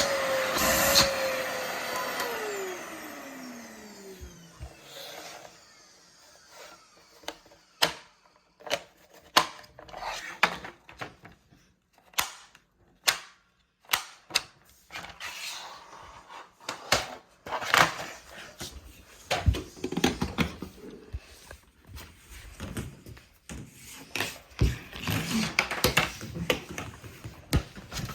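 Sencor SVC45BL bagged vacuum cleaner being switched off: its motor whine drops in pitch and fades over about four seconds as it spins down. Then comes a long run of irregular clicks and knocks, busier near the end.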